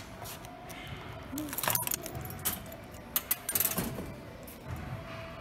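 Jingling and clicking in a few quick clusters, loudest around the middle, with a faint steady hum underneath.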